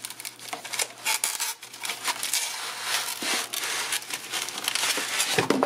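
Foam packing sheet and cardboard box rustling and crinkling as the packing is pulled out of the box by hand: a dense, uneven run of small crackles and scrapes.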